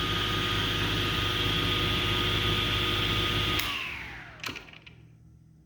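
Table saw's small electric motor running steadily, smooth and quiet for what it is, then switched off about three and a half seconds in and spinning down with a falling whine. A sharp click comes during the spin-down.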